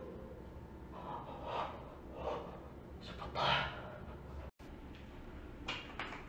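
A person breathing audibly in short, soft breaths, six or seven over a few seconds, with a few faint ticks of steps on a rubble-strewn tiled floor.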